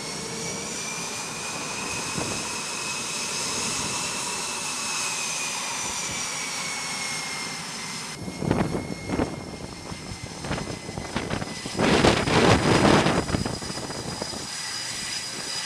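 F/A-18 Super Hornet's twin jet engines running at taxi power, a steady high whine that drifts slowly in pitch. About eight seconds in the sound changes sharply to loud gusts of rushing jet noise, the loudest a couple of seconds long near the end.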